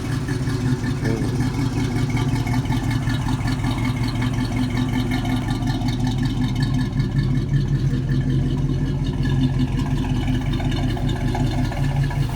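1982 Chevrolet Caprice's engine idling steadily.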